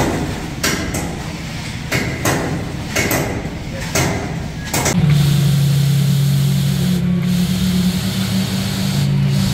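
Machinery running on a concrete pour: a rough drone with a sharp knock about once a second. About halfway a louder, steady engine hum takes over.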